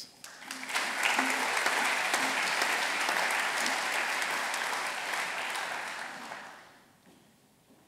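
Audience applauding, building up in the first second and dying away about six or seven seconds in.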